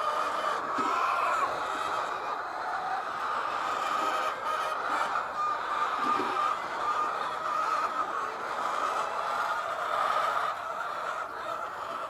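A flock of white layer hens calling and clucking continuously in a busy overlapping chatter, with a few faint scrapes and clicks.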